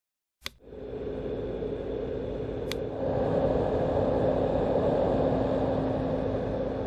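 A white noise machine switched on with a click, then playing a steady deep noise with a faint hum in it. A second click comes a little over two seconds later, and the noise grows louder.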